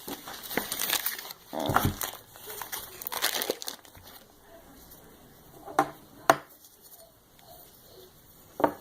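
Cream cheese packaging crinkling and tearing as it is opened by hand, then a few sharp knocks about six seconds in and near the end.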